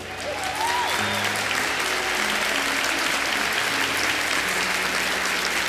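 Steady applause from a crowd, with background music underneath.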